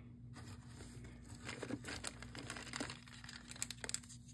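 Clear plastic zip bags crinkling and rustling as they are handled, with a few sharp clicks near the end.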